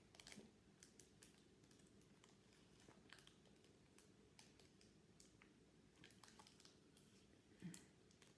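Near silence with scattered faint clicks and light taps, from trading cards being handled; the loudest tap comes near the end.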